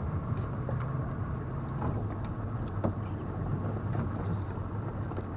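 A 150 hp outboard motor idling steadily, with a few light clinks of anchor chain being hauled in by hand over the bow.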